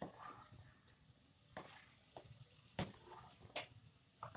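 Light knocks of a slotted spoon against a non-stick pan, about six at irregular intervals, while stirring jaggery melting in boiling water.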